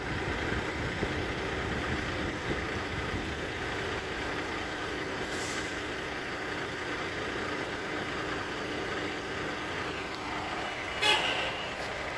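Heavy diesel trucks' engines running steadily, with a short loud blast about a second before the end.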